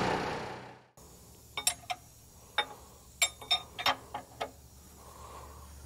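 The idling small-cam Cummins diesel fades out within the first second. After a short silence come about a dozen sharp, light clicks and taps, irregularly spaced over a few seconds.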